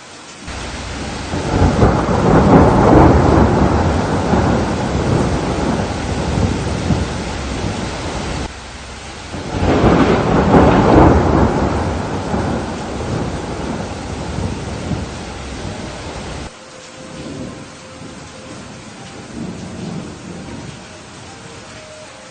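Thunderstorm: steady rain with two long rolls of thunder, the first swelling about half a second in and the second about ten seconds in, each rumbling and slowly fading. A few seconds before the end the rumble cuts off suddenly, leaving quieter rain.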